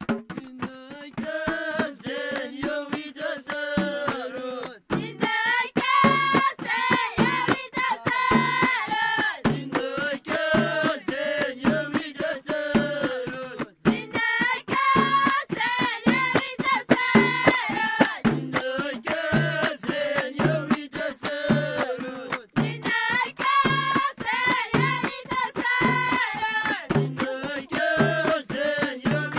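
Traditional Moroccan High Atlas children's song: a group of young voices sings in unison over a steady percussion beat. The phrases alternate between a lower and a higher register about every five seconds, like call and response.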